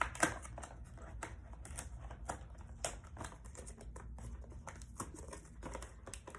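Toy box packaging being handled and opened, with irregular crinkling and sharp clicks.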